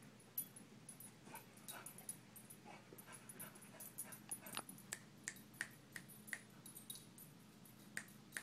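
Beagle hunting for treats: a run of short, sharp clicks and small snuffling sounds, thickest about halfway through, with one more near the end.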